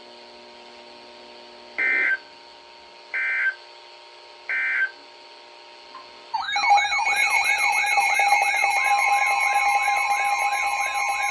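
Emergency Alert System end-of-message data bursts, three short buzzy chirps a little over a second apart, mark the end of a weather-radio warning broadcast. About six seconds in, a loud warbling electronic alarm starts and keeps going, its pitch sweeping up and down a couple of times a second over a steady tone: a weather radio sounding its alert for the next warning.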